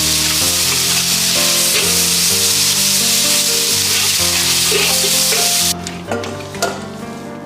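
Sliced celtuce stir-frying in hot oil, sizzling loudly and evenly, with background music. The sizzle cuts off suddenly near the end, leaving the music and a few light taps.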